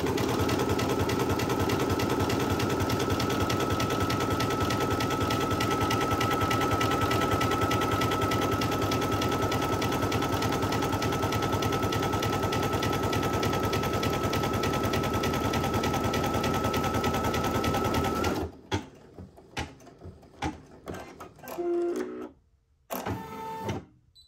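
Brother SE1900 embroidery machine stitching at speed, a rapid even run of needle strokes with a steady whine, stitching the towel in place on the topper. It stops abruptly about 18 seconds in, leaving only a few faint handling sounds.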